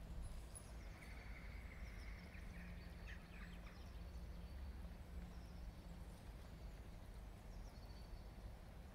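Faint background noise: a steady low rumble, with a few faint high chirps and ticks between about one and four seconds in.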